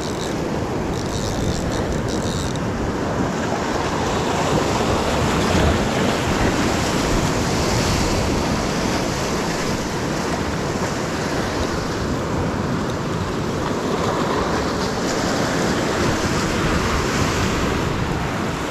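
Ocean surf washing against a rock shelf, a steady rushing wash, with wind noise on the microphone.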